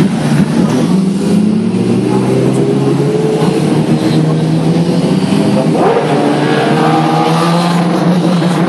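Racing motorcycle engines at high revs, pitch climbing as the bikes accelerate out of a corner and past; a second rise in pitch follows about six seconds in.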